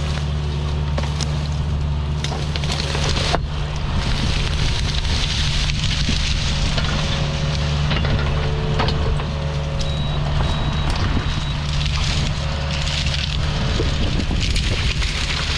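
Excavator's diesel engine running steadily while its rake tears through brush and small trees, with irregular snapping and crackling of branches breaking throughout.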